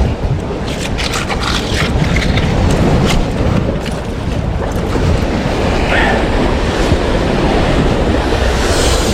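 Sea waves washing against shore rocks, with wind buffeting the microphone: a loud, steady rushing with crackling splashes throughout.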